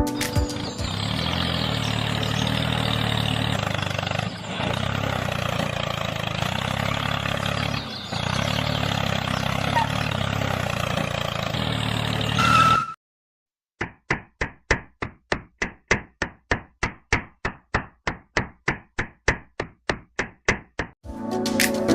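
Small DC motor of a homemade model drilling machine running steadily, dipping twice, then stopping after about 13 seconds. After a brief silence comes a regular series of sharp knocks, about three a second.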